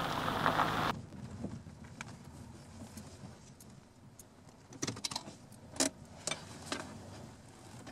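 A car driving over a gravel lot, a steady rush of engine and tyre noise that cuts off abruptly about a second in. Then a quiet parked-car interior with scattered light clicks and rustles.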